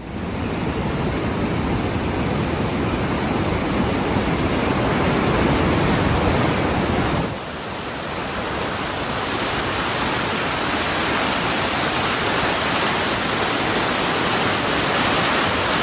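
Steady rush of heavy rain and running floodwater. About seven seconds in it changes abruptly, becoming slightly quieter with less low rumble.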